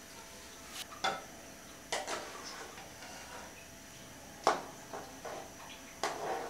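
A metal spatula stirring soup in a metal pot, with a few scattered clinks and knocks against the pot.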